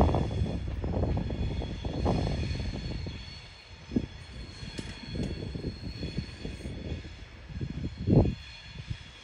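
A train running by with an uneven low rumble and a faint, steady high whine above it. There is a brief louder thump about eight seconds in.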